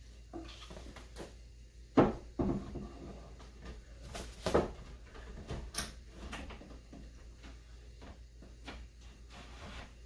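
Wooden workbench drawers being fitted onto their side tracks and slid in, with several sharp wooden knocks and bumps; the loudest comes about two seconds in.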